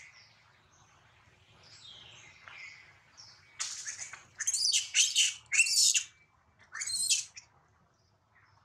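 Fainter high calls, then about five loud, shrill animal calls in quick succession starting a little over three seconds in.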